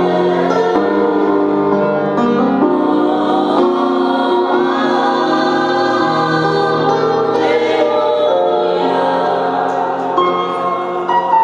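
Choral gospel music: voices singing long held chords that change every second or two.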